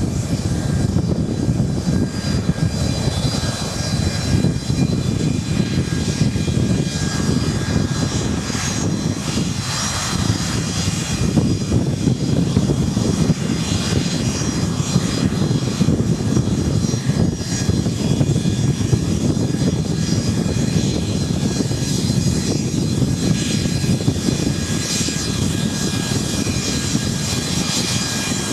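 Boeing 737-200's Pratt & Whitney JT8D turbofan engines running at taxi power: a steady loud jet rumble with several high, even whining tones over it.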